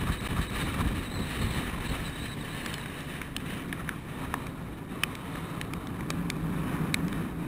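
Storm surf rolling in and breaking against a rock jetty, with wind buffeting the microphone as a steady low rumble. Faint short ticks come through now and then.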